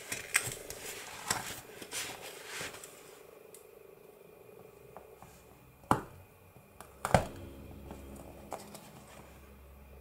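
Handling of paper pages against a fabric journal cover: rustling and scraping for the first few seconds, then two sharp knocks about six and seven seconds in as the pages are moved and set down.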